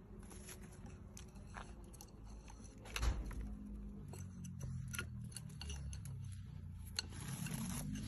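Scattered light clicks and scrapes, with a louder thump about three seconds in: a small parrot's claws and beak on a wooden perch and desk.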